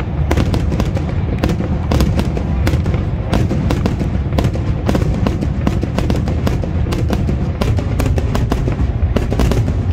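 Fireworks display going off: a dense run of sharp cracks and bangs, several a second, over a continuous deep rumble of bursting shells.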